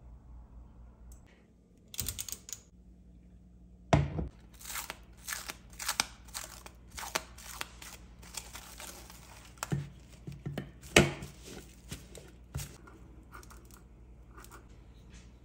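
Plastic cling film being pulled off its roll, crinkling and crackling sharply for several seconds, starting with a loud tearing pull about four seconds in. Near the end come smaller snips of scissors cutting the film.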